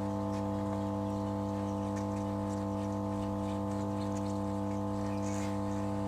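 Hot-air SMD rework station's blower running steadily, a constant hum of several even tones with a faint hiss, as its nozzle blows hot air over a keypad phone's circuit board to lightly heat it.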